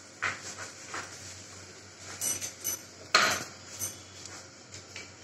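Metal spoon clinking and knocking against a metal pressure cooker pot: a few light clinks, then one louder knock about three seconds in and a last clink shortly after.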